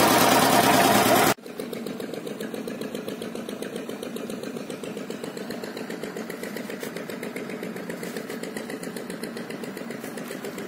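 An engine running at idle with a fast, even pulsing beat. It is loud for about the first second, then drops suddenly to a quieter, steady level.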